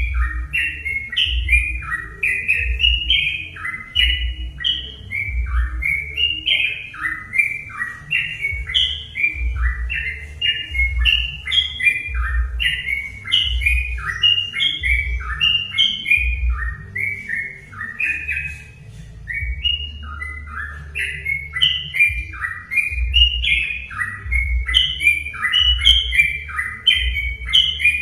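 Yellow-vented bulbul (trucukan) singing without pause, one quick phrase of short rising and falling notes after another, as a lure recording to set a caged bird singing. A low thump pulses underneath about once a second.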